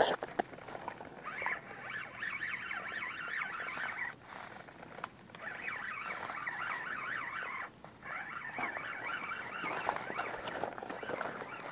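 Spinning reel being cranked to bring in a hooked fish: a dense whirring rattle in three long spells with short pauses between them, after a sharp knock at the very start.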